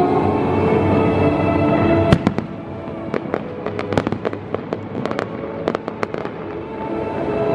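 Aerial fireworks bursting: one loud bang about two seconds in, then a run of scattered sharp cracks and pops for several seconds. Music with held notes plays underneath, louder at the start and again near the end.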